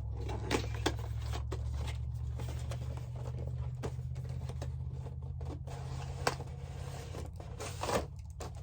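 Cardboard and plastic toy packaging being handled and opened by hand, with scattered clicks, taps and rustles and a few sharper knocks. A steady low hum runs underneath and stops near the end.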